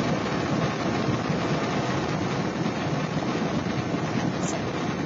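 Steady road and engine noise of a car moving at highway speed, heard from inside the cabin.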